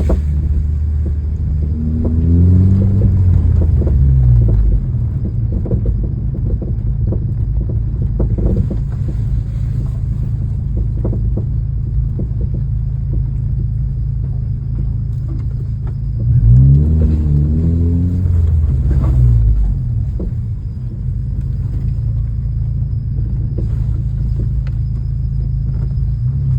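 10th-generation Honda Civic Si on the move: a steady low drone of its 1.5-litre turbocharged four-cylinder engine and road noise, the engine note sweeping up and down twice. Scattered short clunks come through, the knocking the owner traces to the driver-side rear suspension.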